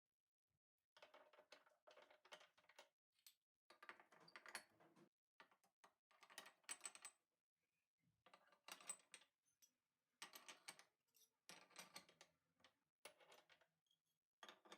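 Faint bursts of rapid clicking and clattering, as of small hard objects being handled, in about eight clusters of roughly a second each with short pauses between.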